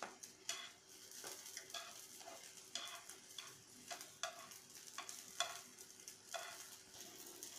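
Eggplant slices sizzling faintly in mustard oil in a non-stick frying pan, with about a dozen light scrapes and taps of metal tongs against the pan as the slices are turned.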